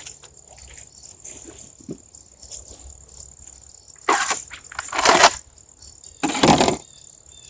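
Crickets chirping steadily in the background, with three short, loud scuffing noises about four, five and six and a half seconds in.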